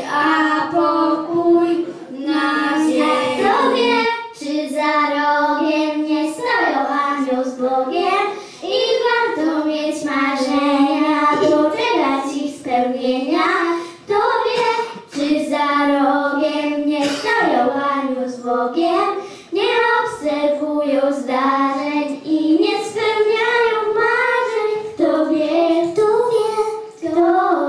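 A small group of children singing a Polish Christmas carol.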